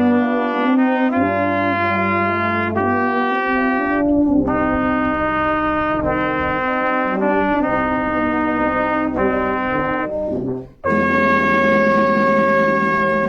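A town wind band with brass to the fore playing slow, sustained chords that change about once a second. The sound breaks off suddenly near the end and resumes on a new held chord.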